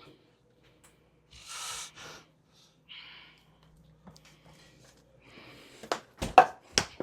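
A few short breathy exhales, then faint rustling and several sharp knocks near the end.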